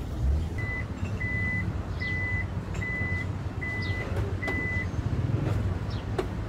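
Black SUV's reversing beeper sounding six short, even beeps of one pitch, a little more than one a second, over the low sound of its engine running.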